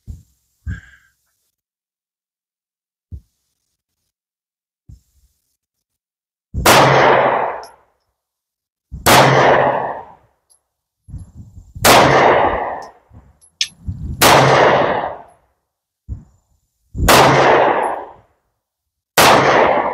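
Six slow, aimed shots from a 9mm semi-automatic pistol, about two and a half seconds apart, each crack dying away over about a second. A few faint handling clicks come before the first shot, and the last shot empties the magazine.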